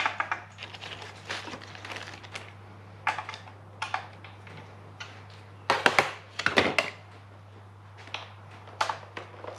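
Socket ratchet with a long extension working a bolt on a Lexus V8's intake: clusters of short metallic clicks and rattles, the loudest burst about six seconds in, over a faint steady hum.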